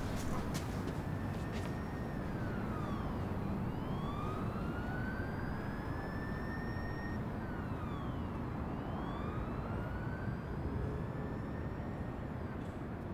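Emergency-vehicle siren wailing, its pitch climbing slowly and then dropping away, twice, over a steady rumble of city traffic noise.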